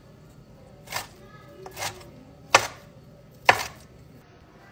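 Chef's knife chopping cooked shrimp on a cutting board: four separate knife strokes, roughly a second apart.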